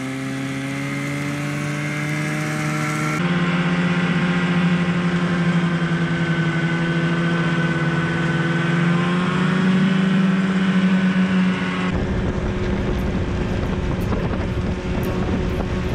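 Snowmobile engine running steadily while riding over snow, its pitch drifting slightly with speed. About twelve seconds in, a rougher rushing noise takes over and the engine tone fades under it.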